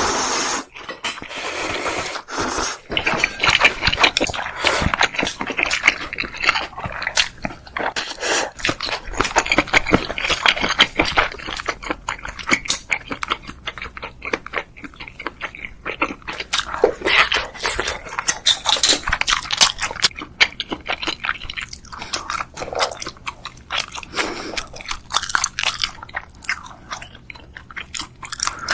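Close-miked ASMR eating: a person biting and chewing food, with many quick, irregular crunches and clicks.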